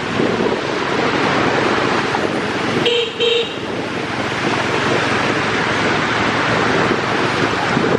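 Steady wash of heavy rain and traffic on a flooded road, with a vehicle horn giving two short toots about three seconds in.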